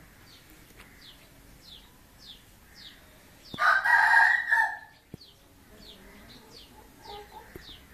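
A rooster crowing once, a single call of about a second and a half, about halfway through, over a faint high chirp that repeats about twice a second.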